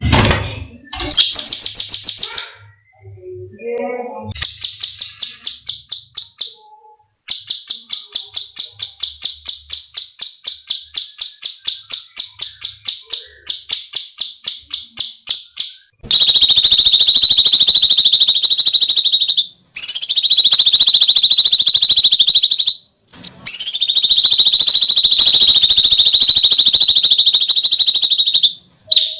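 Cucak cungkok songbird calling loudly. First come long runs of rapid, sharp repeated notes like a rattling trill. About halfway through, these give way to long, harsh, grating screams that break off briefly twice.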